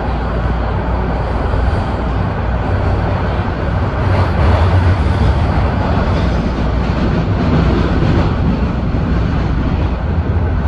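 Toronto subway train running through a tunnel, heard from inside the car: a loud, steady rumble of wheels on rails and traction motors, swelling slightly about halfway through.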